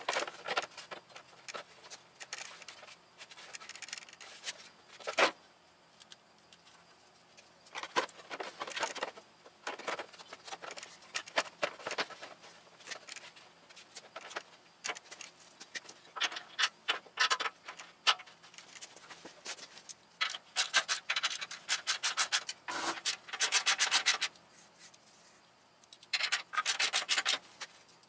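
Fast ratcheting clicks in several short bursts, with scraping and light knocks of metal parts, from hand work on a scooter frame during reassembly.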